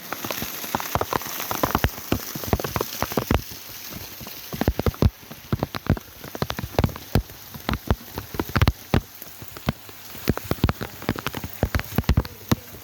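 Heavy rain falling, with a steady hiss and many loud, irregular splashes of close drops.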